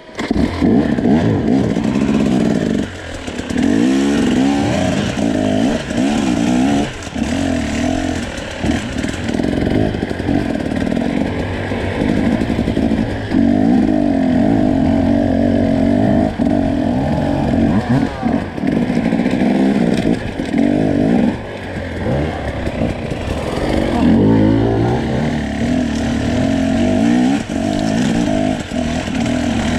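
Enduro dirt bike engine being ridden off-road, revving up and down unevenly as the throttle is opened and shut, with its pitch climbing and falling again and again and brief dips where the throttle closes.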